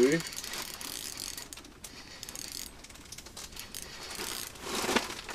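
Fishing reel being cranked, giving a fast run of small mechanical clicks, with a brief rustle of handling near the start and again near the end.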